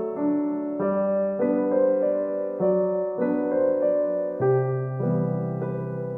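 Background music: a gentle solo piano piece, soft chords and melody notes changing about every half second.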